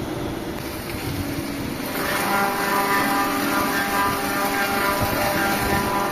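A machine running steadily; about two seconds in it grows louder and takes on several steady whining tones.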